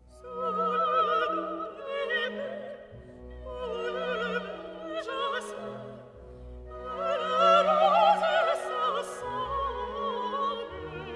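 Background classical music: an operatic voice sings a melody with strong vibrato over an orchestral accompaniment of held low notes. The phrases swell and fade, loudest about eight seconds in.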